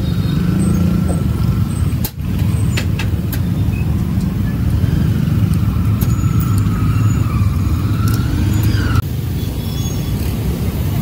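Steady low rumble of street traffic, motorbikes and cars running past, with a few sharp clicks about two to three seconds in.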